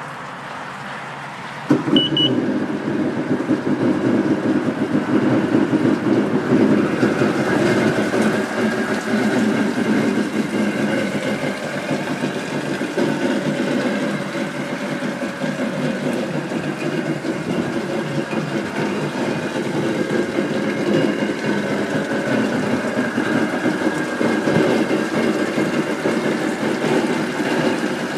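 Yamaha WaveRunner XLT1200's three-cylinder two-stroke engine starting about two seconds in, with a short electronic beep, then running steadily at idle with the craft out of the water on its trailer.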